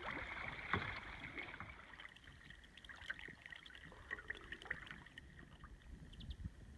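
Faint water sounds from a sea kayak paddling on calm sea: small drips and light splashes, with scattered soft ticks.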